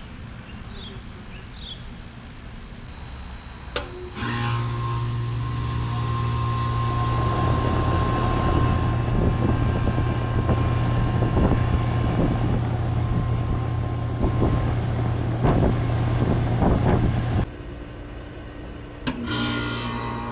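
An outdoor central air-conditioner condensing unit starting up: a click as it switches on, then the compressor's steady low hum and the condenser fan spinning up. About 17 seconds in the sound drops off sharply, and near the end another unit clicks on and starts humming.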